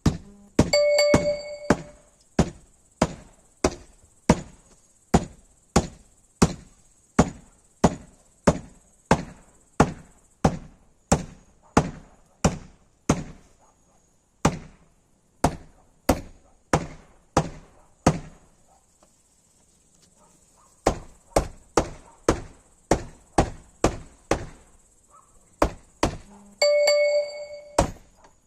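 Hammer driving small nails: steady blows about two a second, with a few short pauses. A brief ringing note sounds near the start and again near the end.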